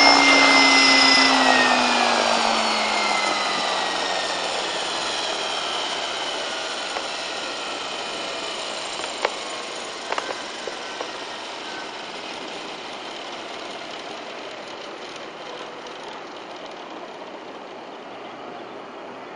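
Align T-Rex 600 electric RC helicopter spooling down on the ground: the whine of the electric motor and drive gears falls steadily in pitch and fades as the rotor slows, with a few light ticks about halfway through.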